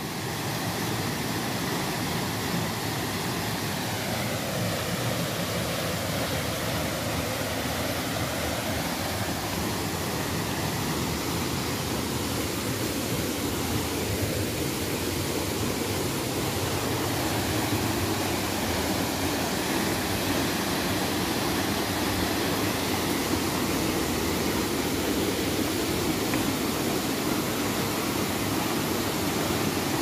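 Steady rushing of a waterfall and the stream running over rocks below it, a constant even roar that grows slightly louder toward the end.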